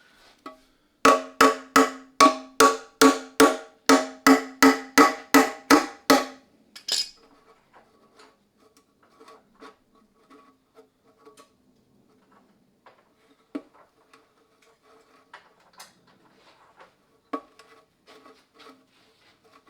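Hammer striking a metal tractor part about fourteen times in quick, even succession, each blow ringing with the same metallic pitch. Then a few light clicks and taps of tools.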